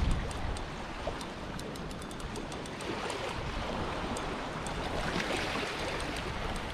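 Small waves lapping and washing over shoreline rocks, a steady rushing wash with scattered light ticks over it.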